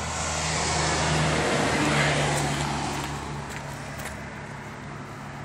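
A motor vehicle going by: a rush of engine and tyre noise that swells to a peak about two seconds in and then fades, over a steady low engine hum.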